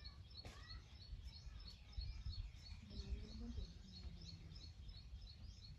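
Outdoor rural ambience: a small bird chirping over and over, short high notes about three a second, over a low rumble.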